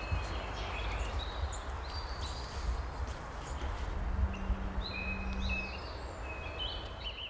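Woodland birds chirping and calling in many short notes over a low, steady outdoor rumble. A faint steady hum joins about four seconds in and fades out before the end.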